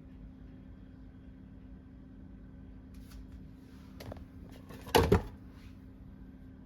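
A door or lid shutting with two quick loud knocks about five seconds in, after a lighter click near four seconds, over a steady low hum.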